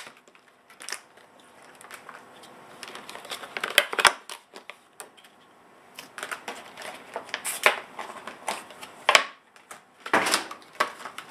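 Clear plastic blister packaging of a pair of RAM modules being opened and handled: an irregular run of plastic crackles, crinkles and clicks.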